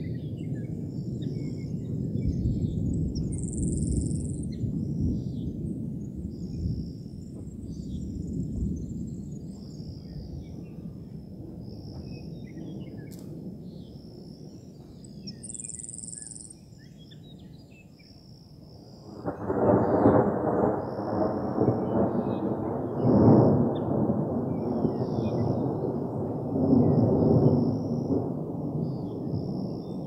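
Thunder from a supercell thunderstorm: a long, low rolling rumble that slowly fades, then a sudden, louder clap about two-thirds of the way in that rumbles on with several further peaks. High chirping calls repeat faintly over it throughout.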